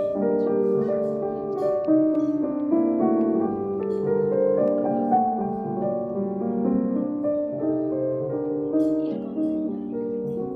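Background music: a gentle piano melody with sustained notes.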